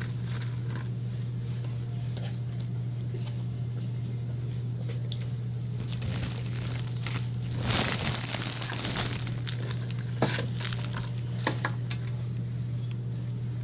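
Close-up eating sounds: chewing and the crinkle and scrape of hands handling chicken and French fries in a foam takeout box, a scatter of clicks with a louder stretch of crackling a little past the middle. A steady low hum runs underneath.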